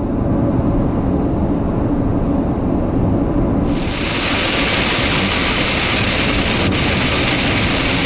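Steady road and engine rumble inside a motorhome cab at motorway speed. About halfway through, a heavy shower starts pelting the windscreen and roof, adding a loud, even hiss over the rumble.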